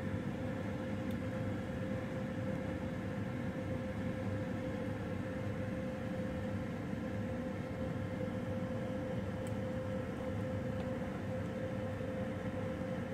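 Kitchen extractor fan and oven running: a steady rushing noise with a constant mid-pitched hum.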